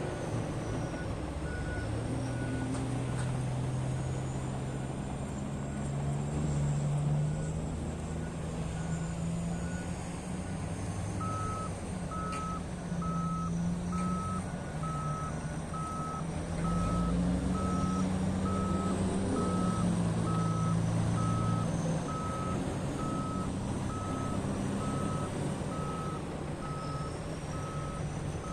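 Heavy diesel earthmoving machinery running with a reversing alarm beeping about twice a second. The beeping is faint at first and becomes louder and steady partway through.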